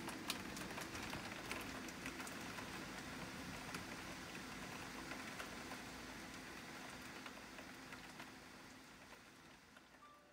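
Steady rain falling, an even hiss with scattered drop ticks, slowly fading out near the end.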